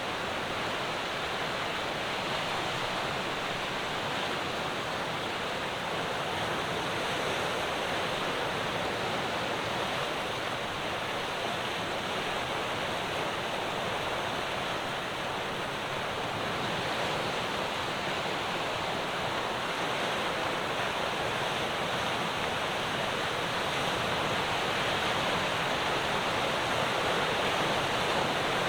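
Ocean waves breaking on the shore: a continuous, steady wash of surf with slow swells, getting a little louder near the end.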